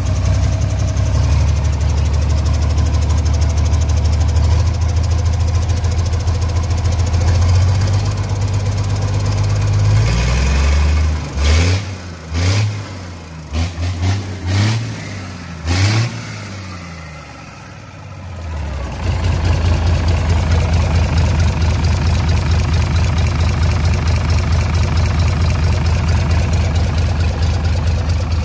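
Hino K13D inline-six diesel engine idling steadily. About ten seconds in the idle drone stops, a run of short sharp bursts follows, and about nineteen seconds in the engine is running at a steady idle again.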